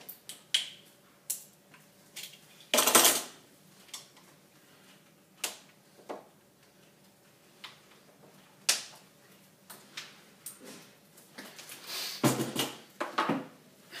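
Scattered sharp clicks and scrapes of a screwdriver prying plastic plugs out of a refrigerator door hinge, with a louder clatter about three seconds in. A short cluster of knocks near the end.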